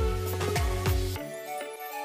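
Background music with a steady beat; the bass and kick drum drop out a little over halfway through.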